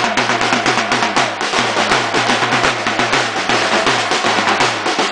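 Supporters' drums beaten hard in a fast, steady rhythm, snare-like strokes over a repeating deep bass-drum pattern.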